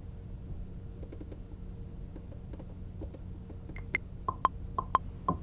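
Steady low hum with faint clicks, then, near four seconds in, sharp pitched percussion clicks start in a beat, falling in pairs about every half second.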